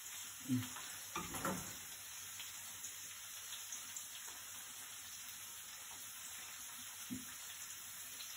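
Faint, steady sizzle of meat and peas frying in a skillet on the stove, with a few brief soft knocks in the first two seconds and one more near the end.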